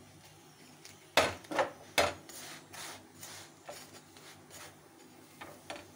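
Cookware knocking and scraping at a gas stove as a paratha is handled on a tawa: three sharp knocks about a second in, then lighter scraping and scattered taps, with one more tap near the end.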